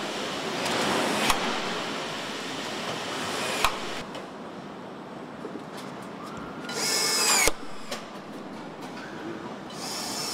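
Assembly-line noise with two sharp metal knocks, about a second and nearly four seconds in. Just past the middle, a power tool runs for under a second, its pitch sweeping, and cuts off sharply.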